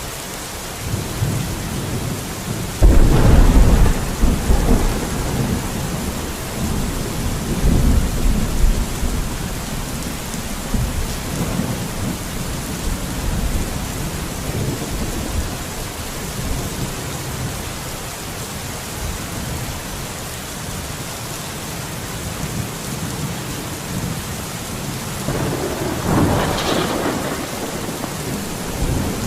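Steady rain with thunder. A sudden loud clap about three seconds in rumbles on for several seconds, and a second, softer roll comes near the end.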